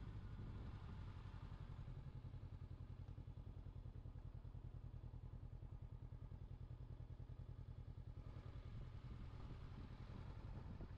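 Honda CB500X's parallel-twin engine running at steady, low revs, a low even pulsing thrum. A rushing noise of wind and road builds up again about eight seconds in.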